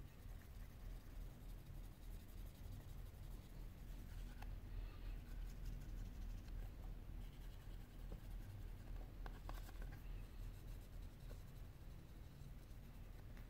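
Faint scratchy rubbing of a cotton swab scrubbing adhesive residue off a Sony Xperia Z5's glass back panel, over a steady low hum, with a few light clicks.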